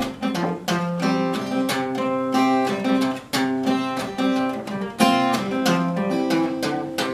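Acoustic guitar strummed and picked in an instrumental passage of a folk song, with no singing.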